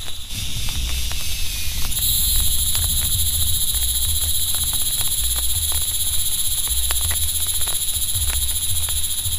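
A high-pitched, steady chorus of calling animals, growing louder about two seconds in. Under it runs a low rumble, with scattered raindrop ticks.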